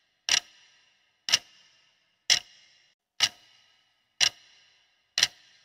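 Countdown-timer clock-tick sound effect: six sharp ticks, one each second, each with a short ringing tail.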